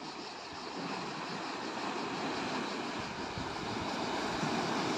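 Steady wash of sea surf against a rocky shore, an even rushing noise that grows slightly louder.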